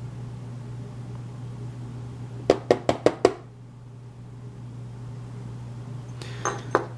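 Small metal lock parts being knocked and tapped while the lock is taken apart to get its pin stacks out: a quick run of about five sharp taps, then two more near the end, over a steady low hum.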